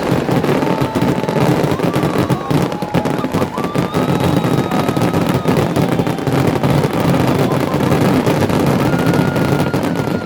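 Fireworks finale barrage: a dense, continuous run of rapid bangs and crackles, with thin whistling tones drifting over it.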